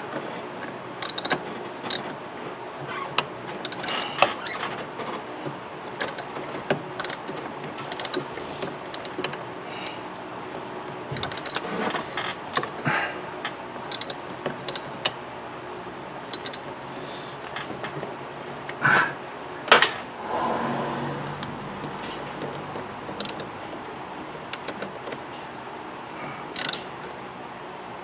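Hand ratchet clicking in short, irregular runs as bolts are tightened, with scattered sharp clinks of the tool against metal.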